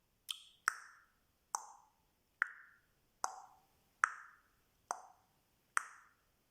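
Beatboxer's mouth making a run of hollow plops, about eight, roughly one a second, the first two close together. Each starts with a sharp click and dies away quickly, dropping in pitch.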